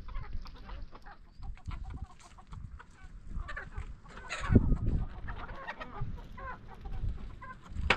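Domestic chickens clucking in short, repeated calls, with one louder burst about halfway through.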